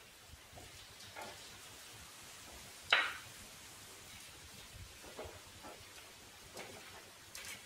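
Wooden pallet boards being handled, making scattered light knocks and taps, with one sharp, louder wooden clack about three seconds in.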